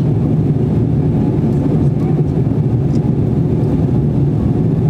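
Steady low drone of a jet airliner cabin, engine and airflow noise heard from a passenger seat.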